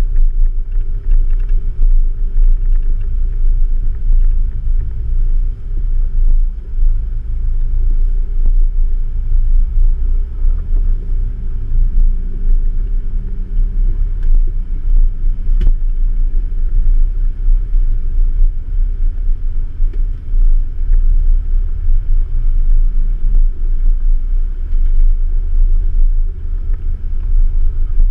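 Jeep engine running off-road, a steady low drone with faint humming tones above it and one sharp knock about halfway through.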